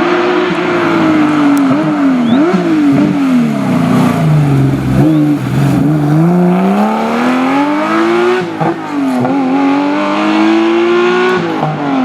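Historic rally car engine at full effort. The engine note falls over the first few seconds, with quick blips as the car brakes and downshifts, then climbs steadily as it accelerates away, dropping briefly at an upshift past the middle and again near the end.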